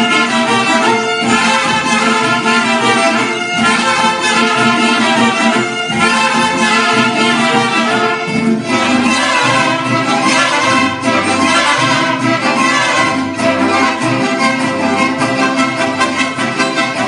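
Mariachi ensemble playing an instrumental passage, with violins leading over the rhythm section; the texture of the playing changes partway through.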